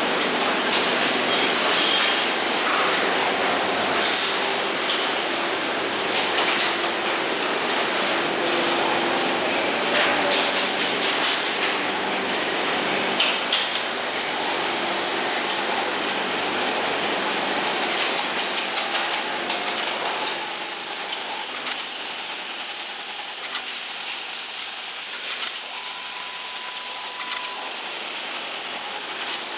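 Steady hiss and running noise of LED die-bonding machines and the room's air, with scattered clicks from the machines. A short steady tone sounds near the end.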